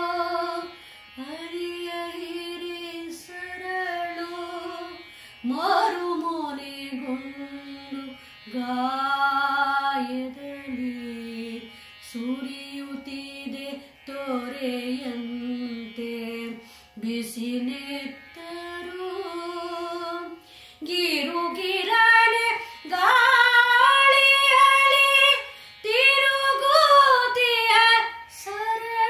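A woman singing a Kannada song solo, with no accompaniment, in a Carnatic style: long, held, ornamented notes in phrases with short pauses for breath. About two-thirds of the way through, the phrases climb higher and get louder.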